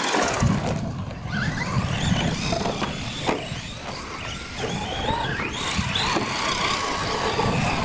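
Radio-controlled trophy trucks racing, their motors whining in pitch that rises and falls again and again as the throttle opens and closes. A steady low rumble lies underneath.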